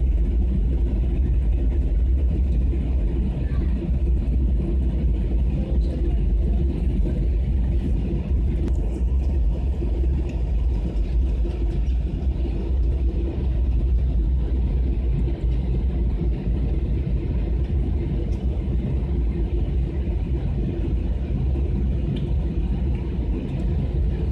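Steady cabin noise inside a Boeing 737-800 on its landing approach: a constant deep rumble from its CFM56-7B turbofans and the airflow, with a lighter hiss on top.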